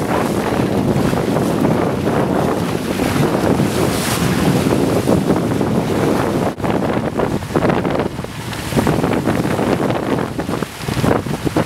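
Wind buffeting the microphone over water rushing and splashing along the hull of a sailing yacht under way, with a brief break about six and a half seconds in.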